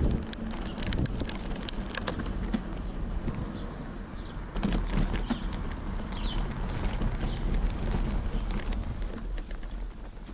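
Bicycle riding over a village street and then cobblestones: tyre noise with frequent clicks and rattles from the bike. Wind rumbles on the microphone underneath.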